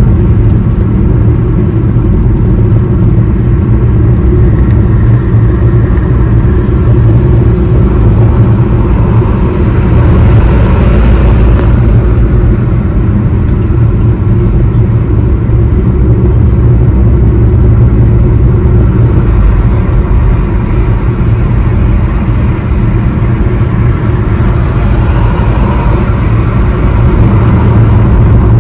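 Road noise inside a car cruising on a highway: a steady low rumble of tyres and engine. About ten seconds in, a brighter, louder swell of noise rises and fades.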